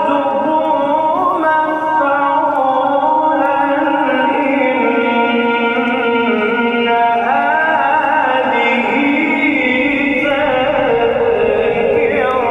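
A male voice reciting the Quran in a long, ornamented melodic phrase, holding notes and sliding between pitches in stepwise turns, the drawn-out style of a formal gathering recitation. The sound is muffled, with no high end, as in an old recording.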